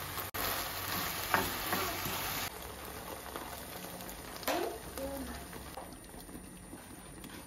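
Sliced chicken and mushrooms sizzling in a frying pan. The sizzle drops to a quieter simmer about two and a half seconds in, as cream goes into the pan.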